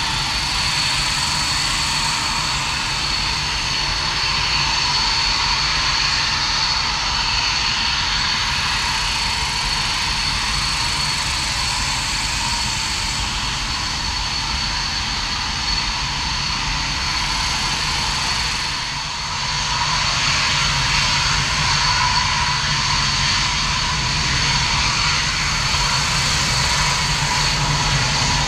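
Dassault Mirage 2000 fighter's single M53 turbofan running at taxi power: a steady high whine over a broad rush of jet noise, with a short dip in level about two-thirds of the way in.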